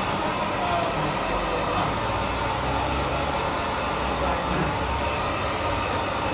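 Handheld hair dryer running steadily, blowing over a customer's hair: a constant rushing noise with a low hum underneath.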